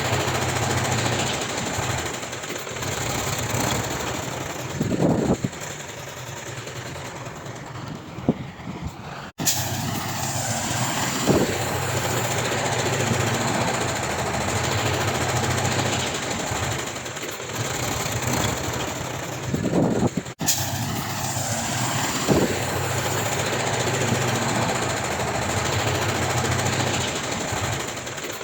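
Heavy diesel earthmoving machinery running steadily, with a few brief louder spots. The sound breaks off abruptly twice.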